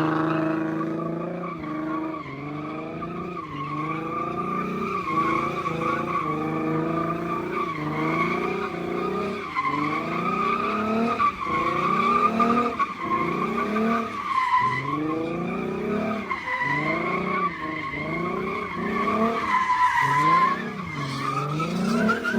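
A car spinning its rear tyres at high revs: a continuous tyre squeal, with the engine revving up and falling back about once a second.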